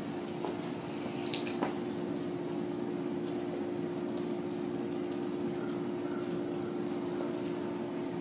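Golden retriever puppies chewing on a tennis ball and a rubber toy: faint wet chewing and a couple of small clicks about a second and a half in, over a steady hum.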